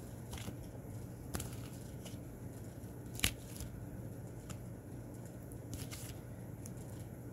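Tarot cards being handled and flicked through in the hands: soft sliding with a few short clicks, the sharpest about three seconds in.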